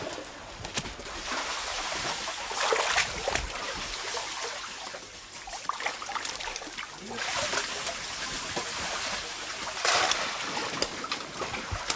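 Water splashing and trickling, rising in a few louder surges.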